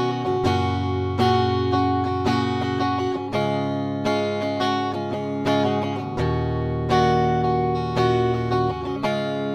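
Ibanez GRG121SP electric guitar playing a clean tone with both humbuckers selected (the mixed, middle selector position). Chords are strummed about once a second and left to ring.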